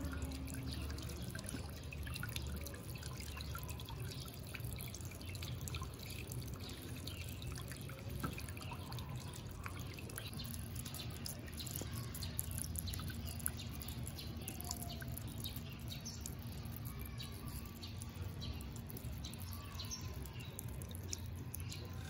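Solar-powered floating fountain pump spraying a small jet of water that falls back into a bird bath: a steady patter of drops and small splashes on the water surface.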